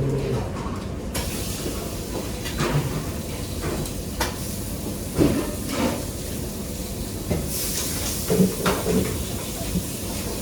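Kitchen work sounds: scattered knocks and clatters of pans and utensils over a steady hiss, which gets brighter a little past the middle.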